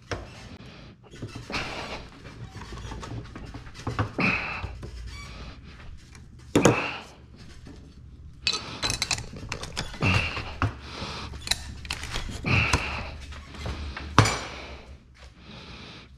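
A series of irregular knocks and clinks, like hard parts or tools being handled and set down, the two loudest about halfway through and near the end, with short hissing bursts in between.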